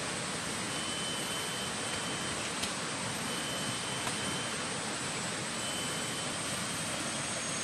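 Rainforest ambience: a steady hiss with thin, high insect tones that come and go.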